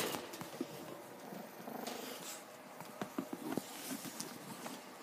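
Small dog growling softly, a low rough rumble, with a few light clicks and rustles about three seconds in.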